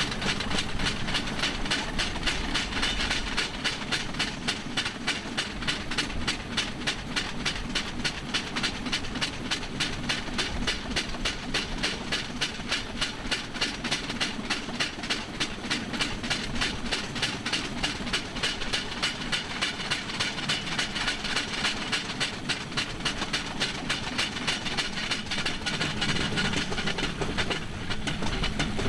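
Rail bike's steel wheels rolling along railroad track, with a steady, rapid, even clicking several times a second.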